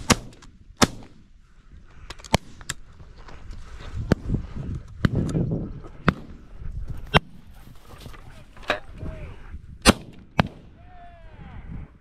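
A rapid string of shotgun shots from several hunters, about a dozen in all, some close and loud, others fainter from guns further off. The loudest come right at the start and about ten seconds in.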